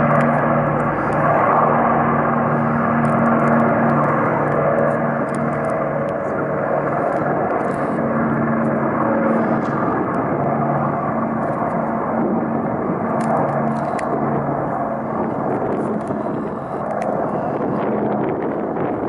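Twin-engine amphibious water bomber of the Canadair type under full power, a steady propeller-engine drone as it climbs away after scooping water. The engine tones weaken slightly near the end as it draws off.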